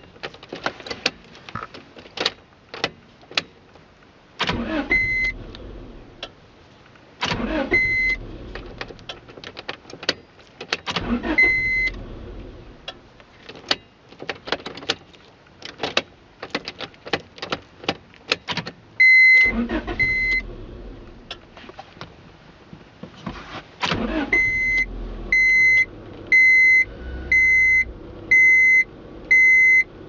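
The key is wiggled and turned in a Honda Odyssey's ignition switch, which is suspected of cutting the engine while driving. The key and switch make rapid sharp clicks, with five short bursts of low rumbling as the key is turned. The dashboard beeps once after several bursts, then beeps steadily about once every 0.8 seconds near the end.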